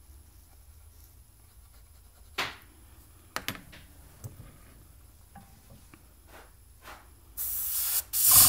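A few light clicks as the plastic model and tweezers are handled, then, about a second before the end, the steady hiss of air from a gravity-feed airbrush, with a steady hum joining it at the very end.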